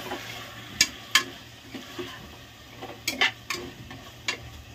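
A metal spoon stirring and scraping minced mutton keema frying in an aluminium pressure cooker. There are several sharp clinks of the spoon against the pot over a faint sizzle.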